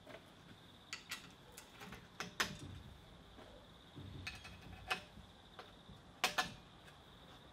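Scattered sharp metallic clicks and taps of M6 bolts, washers and nuts being fitted by hand to the steel frame of a belt grinder, with the loudest clicks about two and a half and six seconds in.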